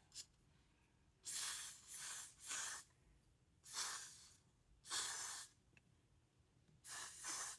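Aerosol hairspray hissing in about six short bursts, each under a second, with gaps between them.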